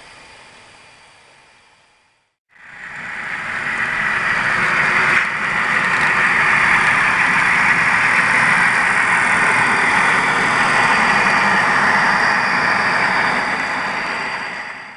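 HO-scale model diesel locomotives and train running past close by on the track: a steady, loud rush of running noise. It swells in after a sudden break about two and a half seconds in and cuts off abruptly near the end.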